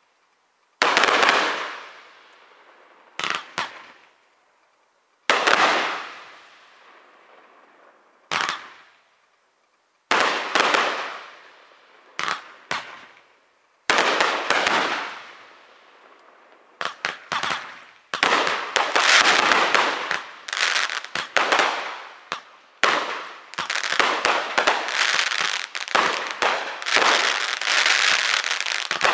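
Aerial fireworks shells bursting: single loud booms a few seconds apart, each with a long echoing tail, then from about halfway a fast, almost unbroken barrage of bangs and crackle.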